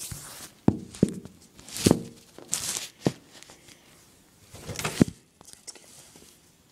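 A phone being handled and set down on a cloth-covered table: a few sharp knocks and short rustles, settling down about five seconds in.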